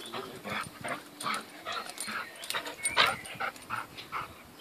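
A dog panting in quick, short, evenly spaced breaths, about three a second, while playing with a rope toy, with one louder burst about three seconds in. The dog is tiring after play.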